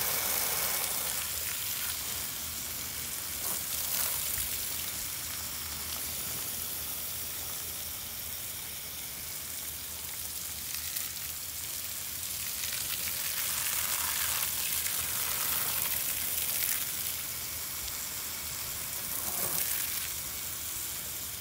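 Garden hose spray nozzle jetting water onto a shag rug: a steady hiss of spray striking the carpet pile.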